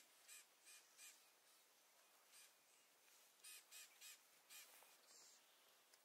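Faint bird calling in near silence: a series of short notes, some in quick runs of three.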